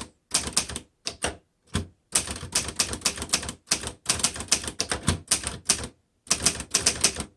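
1954 Underwood upright manual typewriter being typed on: a fast clatter of type bars striking the platen in runs of keystrokes, with short pauses between runs.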